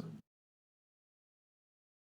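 Silence: a gap between narration lines with no sound at all.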